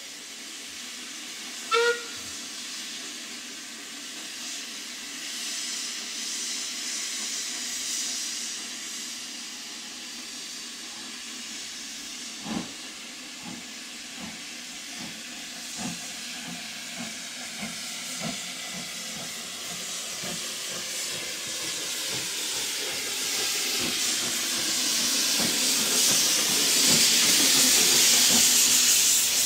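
Metropolitan Railway steam tank locomotive No. 1 coming slowly into the platform: a short whistle blast about two seconds in, then a steady steam hiss that swells loud near the end as the engine passes close. Light knocks sound roughly once a second as it rolls in.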